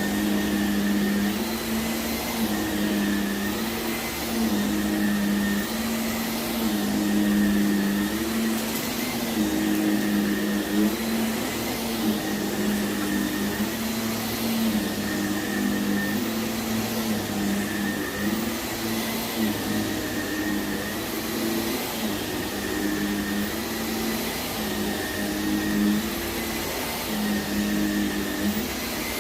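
Vacuum cleaner running over heavily soiled carpet, its motor hum swelling and fading every second or two as it is pushed back and forth.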